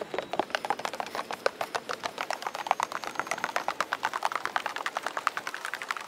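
Footsteps of several people walking on a wooden boardwalk: a quick, irregular patter of overlapping knocks on the planks.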